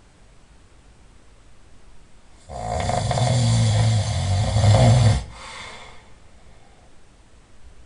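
A person snoring: one long, loud snore starts about two and a half seconds in and lasts nearly three seconds, then trails off faintly.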